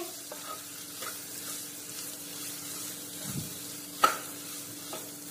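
Wooden spatula stirring and mashing boiled potato pieces with spices in a hot non-stick kadai, over a soft sizzle of oil and a faint steady hum. One sharp knock of the spatula against the pan about four seconds in.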